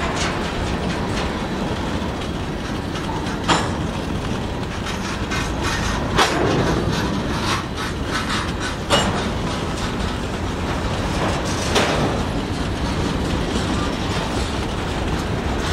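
Freight train of covered grain hopper cars rolling past at close range: a steady rumble of steel wheels on rail, with a sharp knock about every three seconds.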